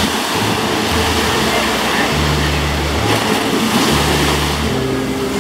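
Small surf waves breaking and washing up over a sandy shore: a steady rush of foaming water.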